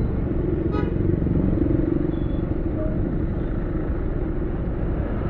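Motorcycle engine running steadily with a low rumble. A brief high-pitched sound cuts through it about a second in.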